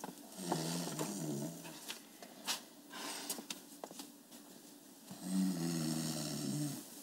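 A sleeping person snoring: two long snores, one just after the start and one about five seconds in, with a few faint clicks between them.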